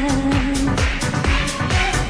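Arabic pop song played by the band with a steady dance drum beat; a long held note ends under a second in, leaving the instruments between sung lines.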